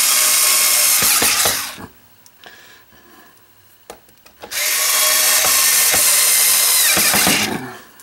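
Cordless screwdriver running in two spells of about three seconds each, driving screws into a vacuum cleaner's housing during reassembly. Its motor gives a steady whine, with a quieter gap of a few small handling clicks between the two spells.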